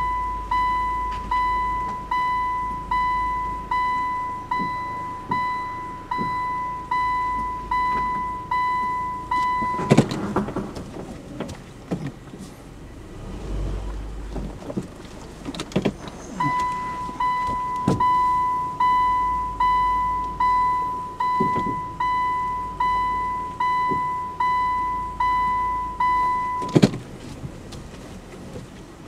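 A car's in-cabin reversing buzzer beeps steadily about once a second as the car backs up. It stops about ten seconds in and starts again some six seconds later. Under it are low rumbles and occasional knocks as the car creeps over rough, broken ground.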